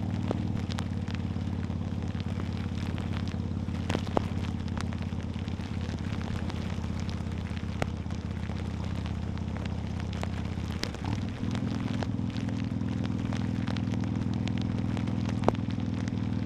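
Harley-Davidson V-twin motorcycle engine running steadily at cruise, with rain pattering and ticking sharply on the microphone. About eleven seconds in the engine note briefly drops and changes pitch.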